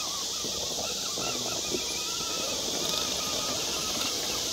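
Night insect chorus: a steady, high-pitched shrill drone, with a faint wavering tone underneath.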